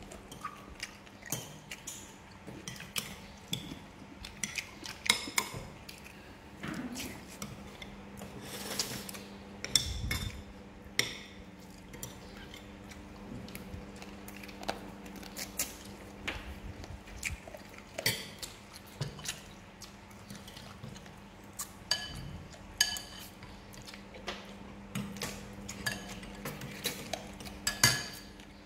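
Metal spoons and forks clinking and scraping against ceramic plates and a soup bowl as people eat, in irregular short taps, over a steady low hum. There is a dull thump about ten seconds in.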